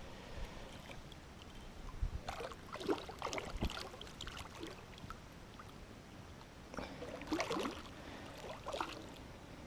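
Faint splashing and scuffing in two short spells, about two and seven seconds in, as a hooked snapping turtle is handled at the water.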